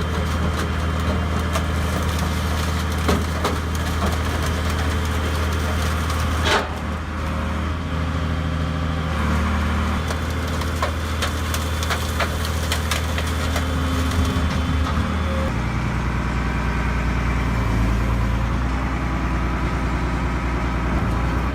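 Heavy machine's engine running steadily under load, with repeated cracking and crunching of material being broken up; the engine note shifts about two-thirds of the way through.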